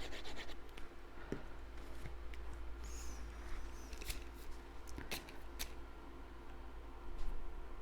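Cardstock pieces being handled, glued and rubbed down: light paper scraping and rustling with a few soft clicks and taps.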